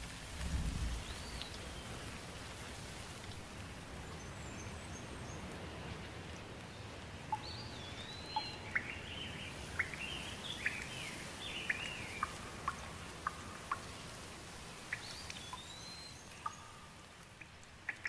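Steady rain with birds calling over it: a rising-and-falling whistled call about a second in, again around 8 s and near the end, and a run of short chirps in the middle. A brief low rumble sounds about half a second in.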